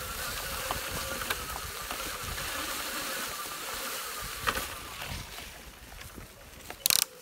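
Electric wheelchair trike on the move: tyres rumbling over a leaf-covered dirt track, with a faint steady motor whine and occasional knocks and rattles from the frame. A loud brief clatter comes near the end.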